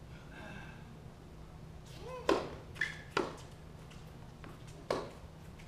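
Tennis balls struck by rackets and bouncing on a hard court during a doubles rally: four sharp pops, a cluster of three about two to three seconds in and one more near the end, over a steady low hum.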